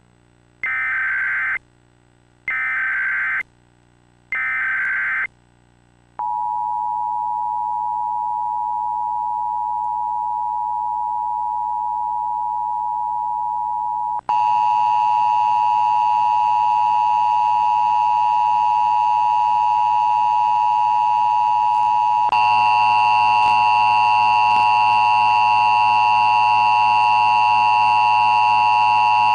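Emergency Alert System tones: three short bursts of screeching SAME header data, each about a second long and a second apart, then the steady EAS attention signal beep. Extra tones layer onto the attention signal twice, and each time it gets louder.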